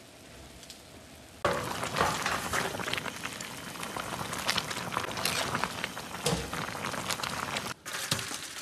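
Thick braising sauce in a wok bubbling and spattering hard as it boils down over high heat, starting suddenly after a quieter first second and a half, with a ladle scooping through it. The sound cuts out briefly near the end.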